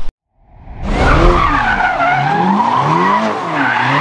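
Car engine revving up and down several times with tyres squealing, a burnout or drift sound effect. It fades in from silence about half a second in.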